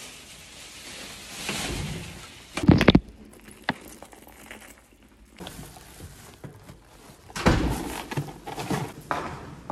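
Handling noise as bags are picked up and carried out of a room: a loud double thump about three seconds in, then plastic carrier bags rustling.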